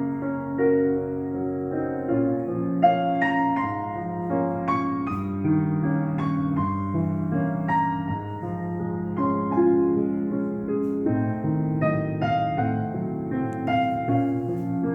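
Piano music, unhurried, with chords and single notes struck about once a second and left to ring.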